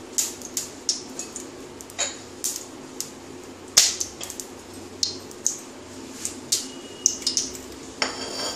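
Cooking oil heating in a non-stick kadai, giving sharp, irregular crackles and pops over a steady low hum.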